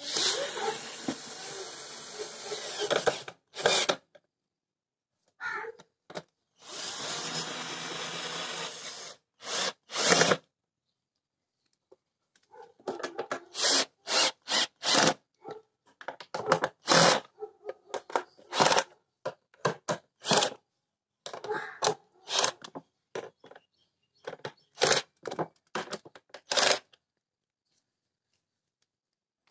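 Cordless drill-driver spinning screws in the plastic air filter housing of a car, in two steady runs of a few seconds each, then a long string of short, sharp bursts.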